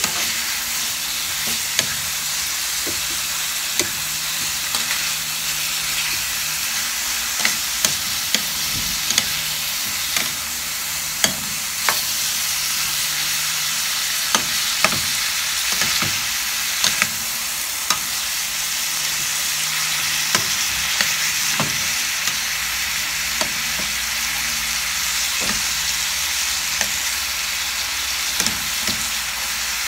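Chicken pieces sizzling in hot oil in a pan, with a steady hiss, while a spatula stirs and turns them, knocking and scraping against the pan in short, irregular clicks.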